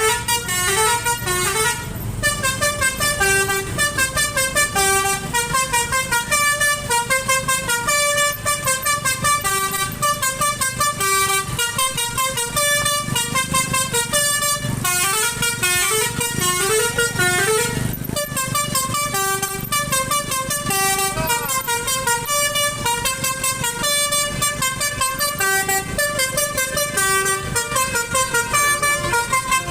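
A bus's telolet basuri multi-tone horn plays a fast, bouncing tune of quickly changing notes, phrase after phrase, over a low rumble.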